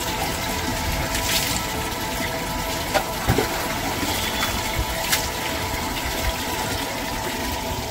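Water running steadily with a gushing sound, with a few small clicks on top.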